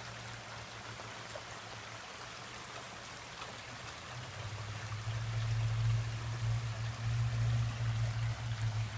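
Rain falling and water running over a koi pond's waterfall, a steady even hiss. A low steady hum swells in from about four seconds in and becomes the loudest sound, easing slightly near the end.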